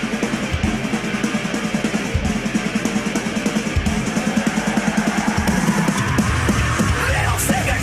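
Loud bass-heavy electronic dance music in a build-up: a fast, even run of drum hits under a rising sweep, with heavy bass entering about six seconds in.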